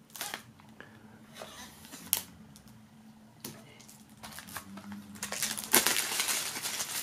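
A knife blade slitting the plastic shrink-wrap on a CD jewel case, with a few sharp clicks and scrapes against the case. Near the end comes the crinkling of the cellophane film as it is peeled off.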